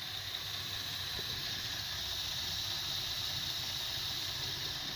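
Holden VE Commodore's 3.6-litre LY7 V6 engine idling steadily.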